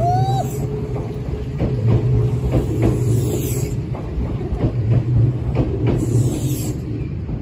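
Kintetsu 26000 series Sakura Liner limited express train running past, its wheels clacking over rail joints over a steady low hum from the running gear. A brief squeal sounds at the very start.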